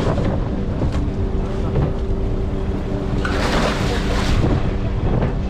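Steady engine drone on a working boat, with wind on the microphone; about three seconds in a live cobia is tipped from a plastic basket into a deck tank of water, making a splash that lasts about a second.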